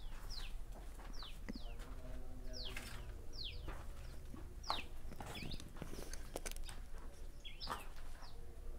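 A bird calling over and over, short sharp notes that each fall quickly in pitch, about one to two a second at uneven spacing, with a few sharp clicks just past the middle.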